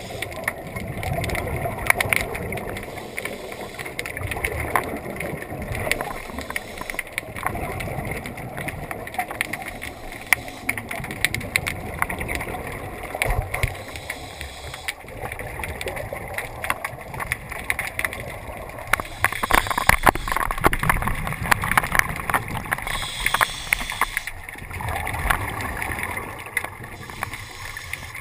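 Underwater scene heard through a waterproof camera housing: bursts of scuba regulator exhaust bubbles gurgling and rushing, over a steady low rumble with many irregular clicks and knocks.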